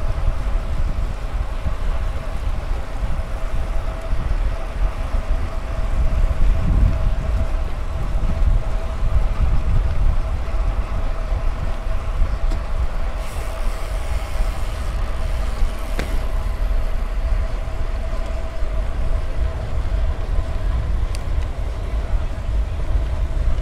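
Riding a bicycle along the road: wind on the microphone and tyre noise, with a steady thin hum throughout and a single sharp click about two-thirds of the way in.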